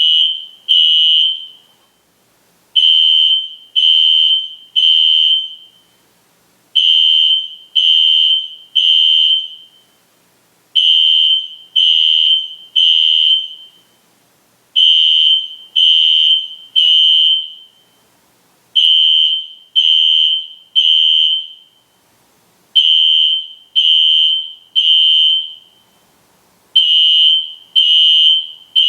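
System Sensor SpectrAlert Classic fire alarm horn sounding a loud, high-pitched tone in groups of three blasts about a second apart, each group followed by a pause of about a second and repeating every four seconds: the temporal-three evacuation signal.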